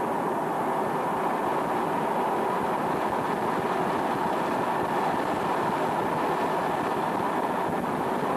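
Steady engine and rotor noise inside a helicopter cabin.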